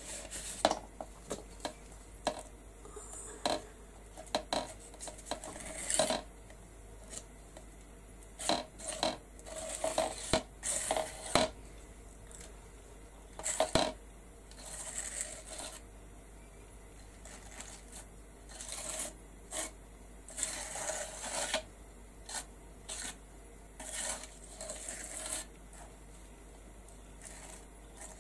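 Metal palette knife scraping and spreading thick structure paste across a plastic stencil in short, irregular strokes, with a few longer drawn-out scrapes.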